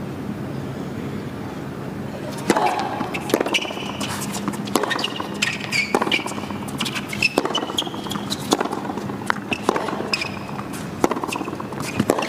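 Tennis rally on a hard court: a serve about two and a half seconds in, then ball strikes and bounces about once a second, with short high squeaks between shots. Before the serve there is only a low, steady arena hum.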